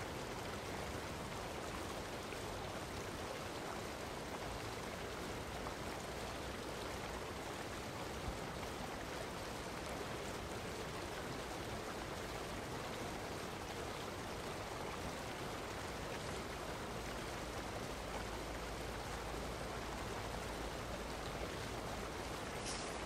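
Steady, even rushing noise like running water, unbroken throughout, with a faint low rumble added in the last few seconds.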